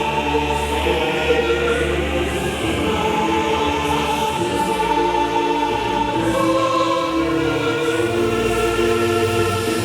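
Electronic dance music in a DJ set, with choir-like sustained voices over long held bass and chord tones.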